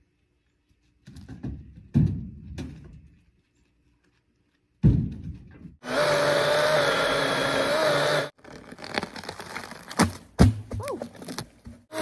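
Heavy thunks of pine rounds dropped into a pickup's bed, twice. Then a DeWalt 20V cordless chainsaw runs with a steady electric whine for about two seconds as it cuts pine, stops, and is followed by scattered knocks and clatter.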